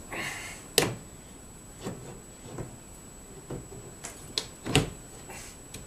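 Cart wheel being worked by hand on its axle: a short scrape, then irregular sharp knocks and clicks, the loudest about three-quarters of the way through.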